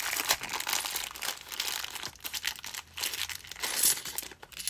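Clear plastic bank coin bag crinkling as hands work it open to get at the £2 coins inside.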